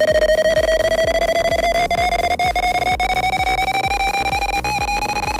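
Computer beep tone generated by a C program's sound() function, buzzy, rising slowly and steadily in pitch as the loop steps the frequency up, with faint regular ticking underneath.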